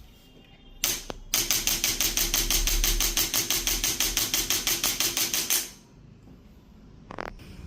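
Rapid, even tapping, roughly eight sharp strikes a second, lasting about four and a half seconds, with a single hit just before it and one short knock near the end.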